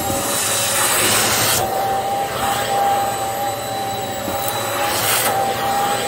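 Hoover vacuum cleaner running with a steady motor whine as its hose wand sucks air along the carpet edge. The rush of air swells louder for a moment about half a second in.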